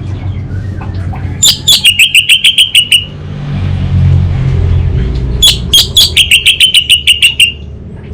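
Orange-headed thrush singing two fast chattering phrases, each a quick run of sharp repeated notes at about eight a second that opens with a few higher clicks, the crackling song type bird-keepers call 'kabel konslet' (short-circuiting cable). A steady low hum runs underneath.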